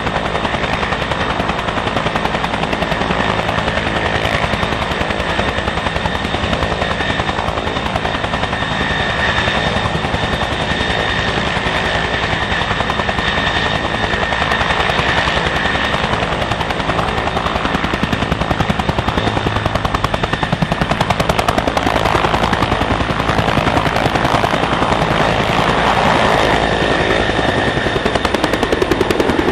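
Bell 212 helicopter, its twin Pratt & Whitney PT6T turboshaft engines running at flight speed: a steady high turbine whine over the rapid, even chop of the two-blade main rotor. The sound grows louder in the last third as the helicopter lifts off.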